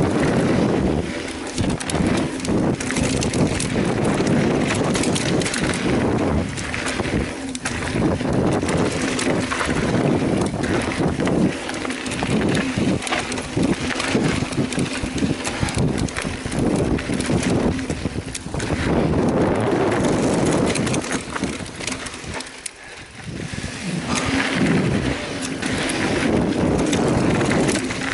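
Mountain bike rolling fast down a rough dirt trail: a constant rattle of tyres over rocks and roots and the bike shaking, with a brief lull about four-fifths of the way through.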